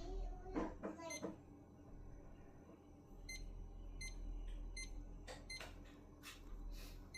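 Several short electronic beeps among scattered clicks and clatter, over a steady low hum.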